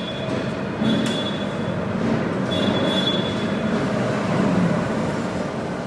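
Electro-hydraulic meat stuffer running steadily as its motor-pump drives the piston, pushing mince through a 25-nozzle portioner. A faint high whine comes and goes over the running noise.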